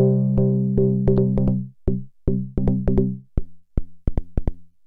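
Korg Volca Keys synth played through the Moog Rogue's filter and contour generator, gated by a step sequencer. A held, buzzy note drops out about a second and a half in, leaving short, clicky gated notes in a quick sequenced rhythm.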